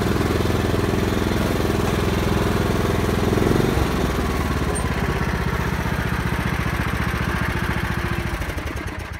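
Riding lawn mower engine running steadily. A little under four seconds in, its pitch drops to a slower, pulsing idle, and near the end it begins to wind down as the engine is shut off.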